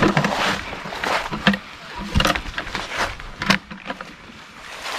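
Footsteps crunching and rustling through dry fallen leaf litter, uneven steps about once or twice a second, quieter near the end.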